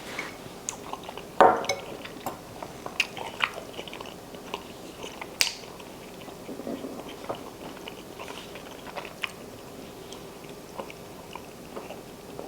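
Scattered small clicks and taps, with a louder knock about a second and a half in, over a faint steady hum.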